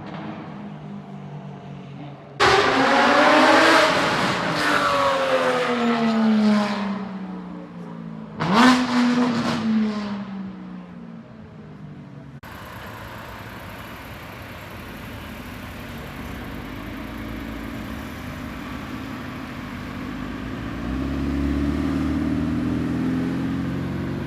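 Porsche 718 Cayman GT4's flat-six engine revving hard in two sudden loud bursts, each falling away in pitch as the car pulls off. After a cut, a steadier, lower engine rumble takes over and swells near the end.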